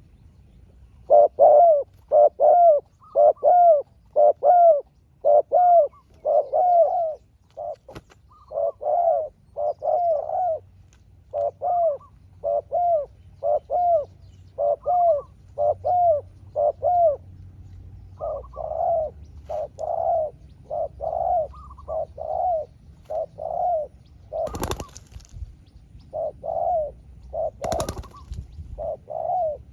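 Spotted doves cooing: a long run of short, repeated coo notes, about two a second, in louder and softer runs that fit two doves answering each other in turn. Two brief bursts of noise come near the end.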